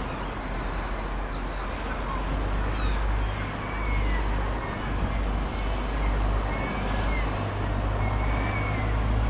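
Seafront road ambience: a steady low rumble of passing traffic, with a few faint bird calls over it.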